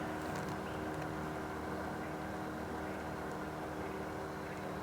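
Steady, unchanging hum of a boat motor running.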